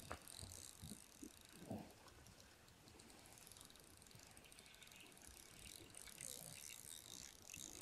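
Faint clicking and whirring of a spinning reel being cranked, winding line in on a hooked fish.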